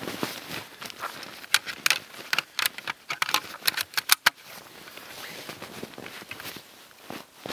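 A quick, irregular run of sharp metallic clicks and rattles as a scoped rifle is handled in the prone position, starting about a second and a half in and lasting about three seconds, with soft rustling around it.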